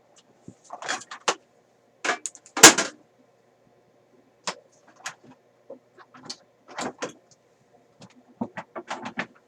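Irregular clicks, taps and knocks of hard objects being handled on a workbench, with a louder clatter about two and a half seconds in, over a faint steady hum.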